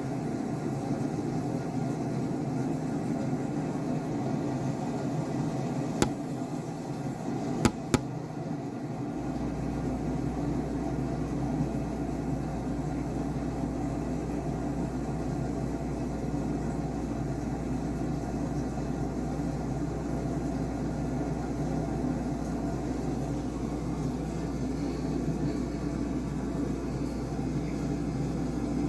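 Steady machine-like hum and rumble. Three sharp clicks come about six to eight seconds in, and a deeper low hum cuts in suddenly about nine seconds in and holds steady.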